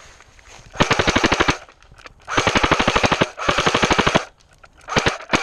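Airsoft rifle firing on full auto: three bursts of rapid, evenly spaced shots, each under a second long, then two short bursts near the end.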